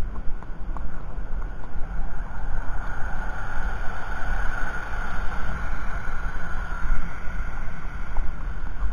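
Wind buffeting a helmet-mounted camera's microphone: a steady low rumble, with a brighter hiss swelling about two seconds in and dying away about five seconds in.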